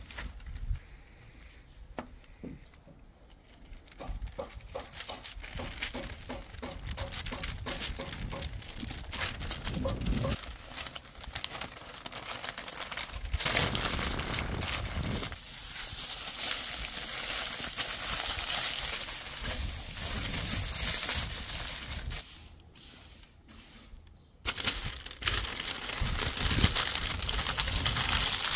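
A chef's knife cutting through a slow-cooked beef shank on paper, faint light ticks and scrapes. About halfway in comes loud crinkling and rustling of a sheet of white paper as the meat is folded up in it. The rustling stops for a couple of seconds near the end, then starts again.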